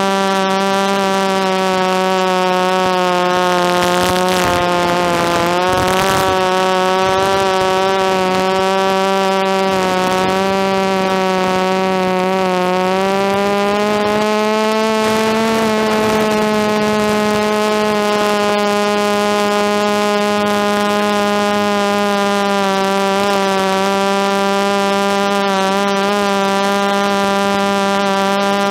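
DJI F330 quadcopter's four DJI motors and propellers whining steadily in flight, a loud buzzing hum whose pitch drifts with throttle and climbs a little about halfway through. A brief rush of noise comes over it about four to six seconds in.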